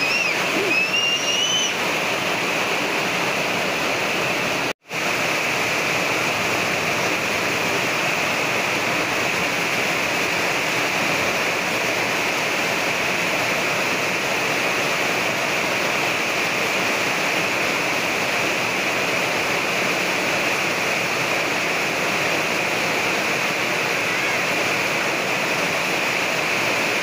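Steady heavy rain falling, an even rushing hiss. The sound drops out for an instant about five seconds in.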